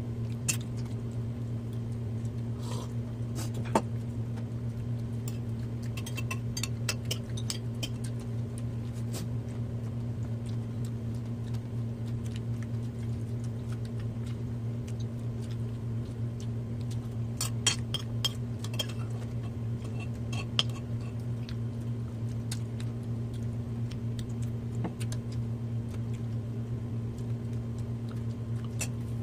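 Spoons and forks clinking now and then against plates and bowls as people eat, in scattered clusters of sharp clicks. A steady low hum runs underneath.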